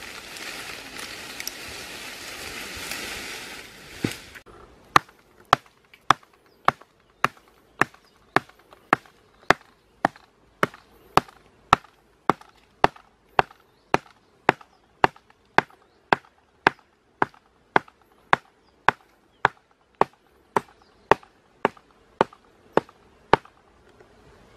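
Leafy branches rustling for about four seconds, then steady chopping into wood with a hand blade: sharp, evenly spaced blows, nearly two a second.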